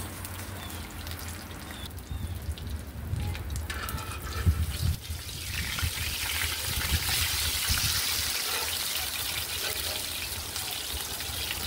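Oil sizzling steadily in a cast iron frying pan with shrimp fritters frying in it, the sizzle swelling about halfway through. A few knocks and bumps come first, the loudest about four and a half seconds in.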